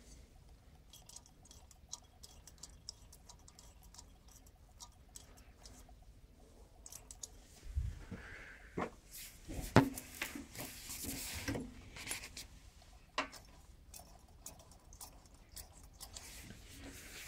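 Quiet handling noise of small clicks and rustling. About eight to twelve seconds in, a cluster of knocks and scraping comes as the camera is moved, the loudest a single sharp knock near ten seconds. The engine is not running.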